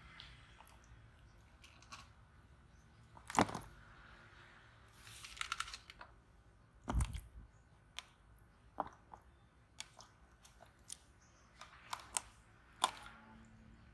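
Clear plastic tubs being handled: scattered light clicks and knocks of plastic, with a louder knock about three seconds in and a deep thump about seven seconds in.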